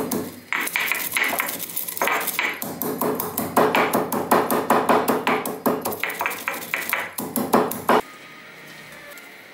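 Heavy stone pestle pounding in a stone mortar, a fast run of sharp knocks several times a second, grinding whole spices into powder. The pounding stops abruptly about eight seconds in.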